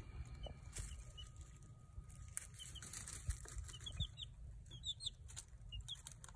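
Baby chicks peeping quietly in short runs of a few high notes, several times, over light rustling and clicking of wood shavings as they move about.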